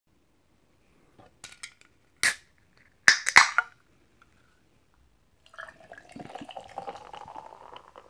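A can of McCol barley soda is handled and cracked open: a few light clicks, then sharp pops with a short fizz about two to three seconds in. From about five and a half seconds the fizzy soda is poured over ice into a glass mug, pouring and fizzing with a pitch that rises slightly as the mug fills.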